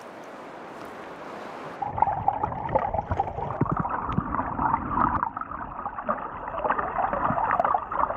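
River water rushing: a soft steady hiss, then about two seconds in a louder, rougher rush of rapids with low rumbling.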